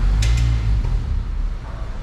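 A car engine running with a deep, steady rumble, with two short sharp clicks just after the start.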